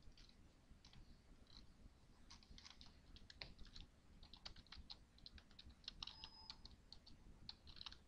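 Faint typing on a computer keyboard: scattered key clicks, coming in quick runs from about two seconds in.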